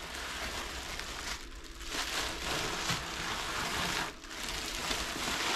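Packaging rustling and crinkling in stretches, with two short pauses, as a putter is unwrapped from its box.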